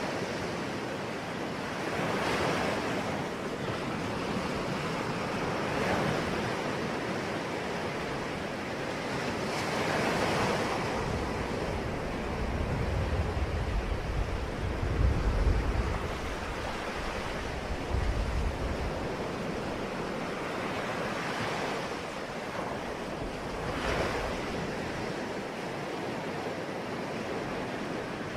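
Ocean surf: waves breaking and washing in, the hiss swelling every four seconds or so. A deep low rumble builds through the middle for several seconds.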